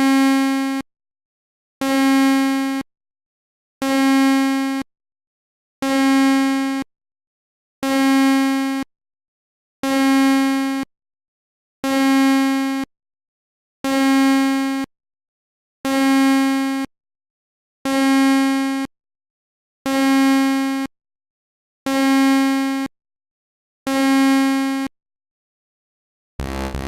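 Synthesized imitation of an MRI scanner's gradient-coil noise: a low buzzing tone about a second long, repeating every two seconds with silence between, thirteen times. Near the end a different, continuous buzz begins.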